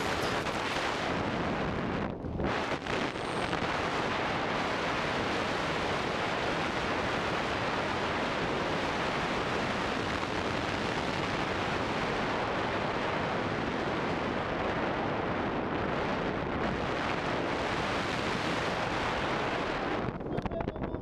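Steady wind rushing over a helmet-mounted camera's microphone as a tandem parachute descends under canopy, easing off near the end as the pair come in to land.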